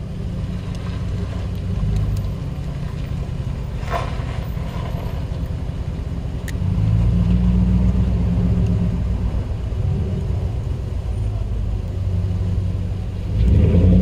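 A low, uneven rumble that gets louder about halfway through, with a couple of faint ticks.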